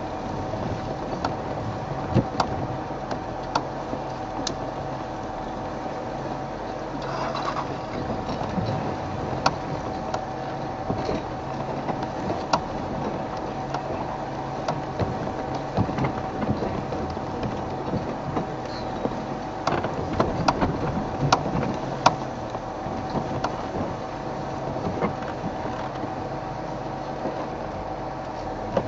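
Open safari vehicle's engine running slowly over very uneven ground: a steady drone with many scattered sharp knocks and clicks as the vehicle jolts.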